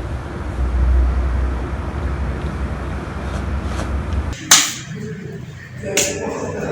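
A steady low rumble, then two sharp clacks about a second and a half apart.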